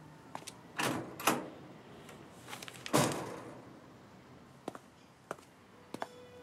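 Footsteps, then a metal gate door rattling open about a second in and slamming shut about three seconds in, the bang ringing briefly before dying away. A few more footsteps follow.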